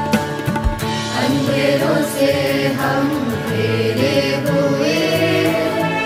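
Background song music: a couple of drum strokes near the start, then from about a second in a long wordless sung melody over steady accompaniment.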